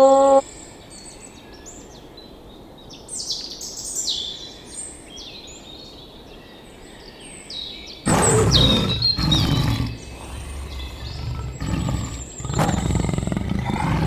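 Small birds chirping and twittering, then about eight seconds in a large animal starts giving loud, rough, growling calls, several in a row with short gaps between them.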